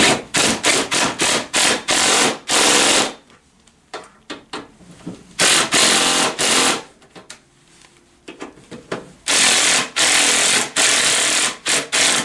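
Power drill driving Allen-head bolts down in a series of bursts: several quick trigger pulls, then longer runs, with a gap of about two seconds between groups.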